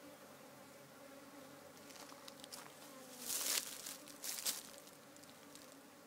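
A busy colony of African honey bees buzzing at the hive, a steady hum. A little past three seconds in come two short, loud scratchy noises about a second apart.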